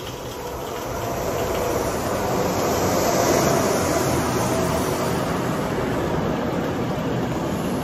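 A passing train rumbling heard from inside a pedestrian tunnel: a loud, steady roar that builds over the first three seconds and then holds.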